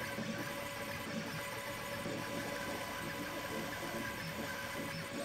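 Stepper motors of a Two Trees TTS-55 diode laser engraver driving the laser head back and forth while engraving plywood at 2000 mm/min, a buzzing in short low tones that change pitch every fraction of a second.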